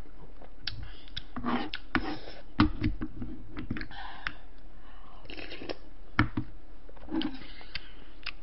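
Close-miked eating sounds: chewing and small mouth clicks while a spoon scrapes and taps in a wooden bowl, mixing rice with bulgogi. There is a sharper knock about two and a half seconds in and another about six seconds in.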